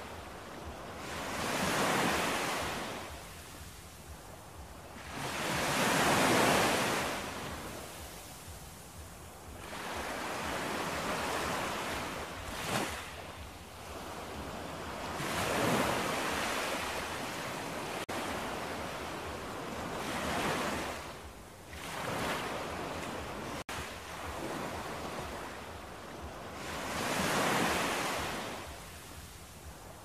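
Sea surf washing onto a shore, each wave swelling to a rushing hiss and fading every few seconds.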